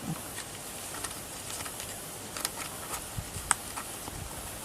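Scattered light clicks and taps from handling papers and rubber stamps on a craft table, with one sharper click about three and a half seconds in, over a steady faint hiss.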